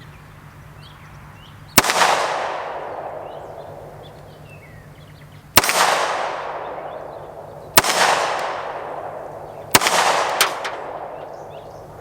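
Four 9mm pistol shots from a Canik TP9 Elite SC. Each is followed by the long, fading ring of a steel gong plate struck by the bullet. The first shot comes about two seconds in; the rest follow about two seconds apart.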